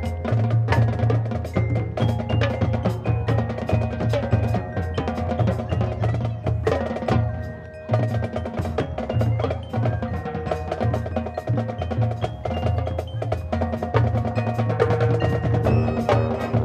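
Marching band playing: brass and sousaphones over a drum line and front-ensemble mallet percussion, with a low bass line moving in rhythmic blocks and sharp drum and mallet strokes throughout; the sound dips briefly about halfway through.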